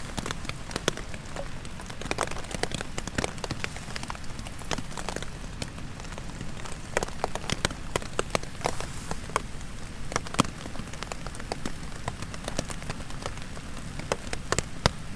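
Heavy rain falling on a tent, a steady patter with many irregular sharp taps of large drops dripping from trees onto the fabric.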